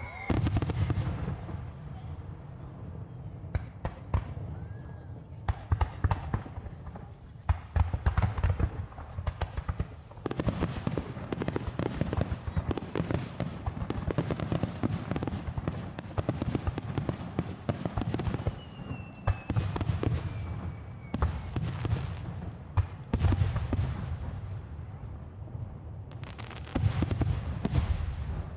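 Aerial fireworks shells bursting in a dense finale barrage: repeated deep booms under thick crackling, with a falling whistle about 19 seconds in.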